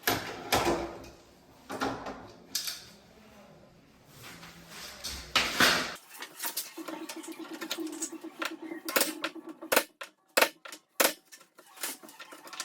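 Irregular clinks, knocks and scrapes of small metal hardware being handled and fitted. About six seconds in the background changes abruptly, and sharp clicks follow in quick succession.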